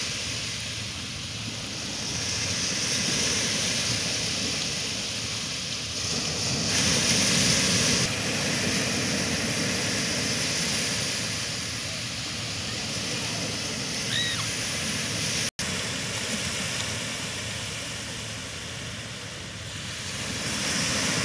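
Lake Michigan surf: small waves breaking and washing up the sand in a steady rush that swells and eases every few seconds. The sound cuts out for an instant about two-thirds of the way through.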